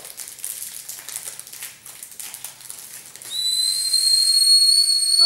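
Ramune whistle candy, a ring-shaped Japanese sweet, blown between the lips to sound a steady high-pitched whistle that starts about three seconds in, after soft wrapper rustling.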